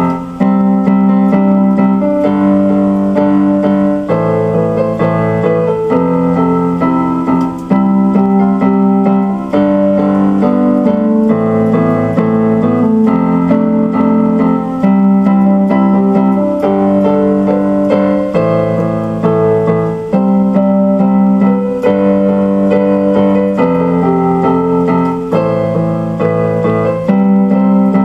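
Instrumental keyboard music with a piano sound: sustained chords changing every second or two over a steady bass line.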